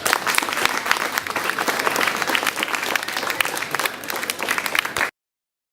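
Audience applauding, many hands clapping, until the sound cuts off abruptly about five seconds in.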